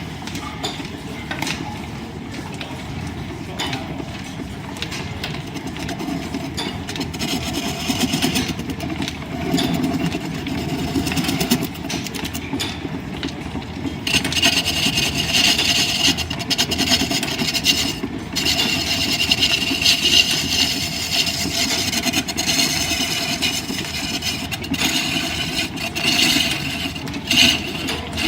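Line-shaft driven wood lathe running with a steady low rumble from its shafting and belt. About halfway in, a turning tool starts cutting the spinning wood, adding a steady hissing scrape that comes and goes.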